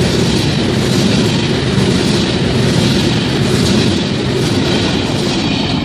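Freight train's covered hopper wagons rolling past close by: a loud, steady noise of steel wheels running on the rails, with the clatter of wheels over rail joints.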